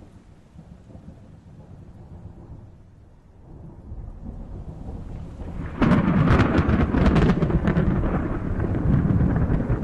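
Thunder: a low rumble that slowly swells, then a sudden loud thunderclap about six seconds in, crackling sharply for a couple of seconds and rolling on as a heavy rumble.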